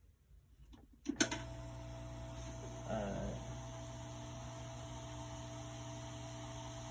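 A click about a second in, then a hot air rework station's blower running with a steady hum.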